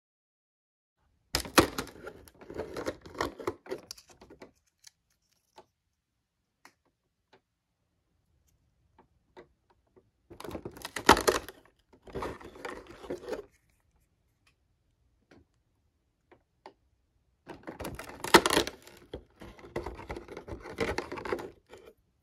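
Small cardboard toy boxes and plastic packaging being handled and opened by hand: three crackling, clicking bursts a few seconds long, with scattered single clicks between.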